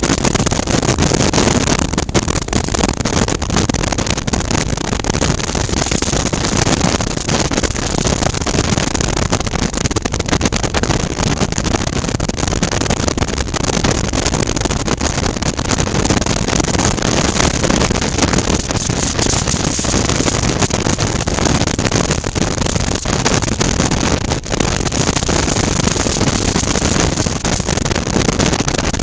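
2019 Suzuki V-Strom 650 motorcycle at a steady cruise, heard through a helmet-mounted camera microphone. The sound is a constant rush of wind over the microphone with the 645 cc V-twin engine running underneath.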